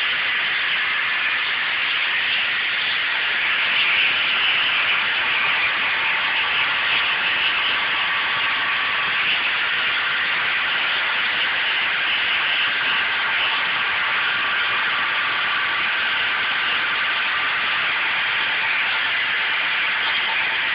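Vacuum lifting beam's vacuum system running with a steady hiss and a faint hum.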